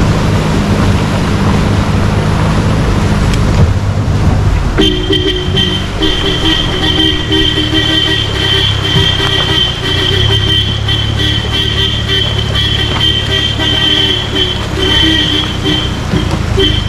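Off-road vehicle engine and road noise, then about five seconds in a car horn starts and keeps sounding steadily, breaking off briefly a couple of times near the end. The horn is going off by itself, with no one pressing it.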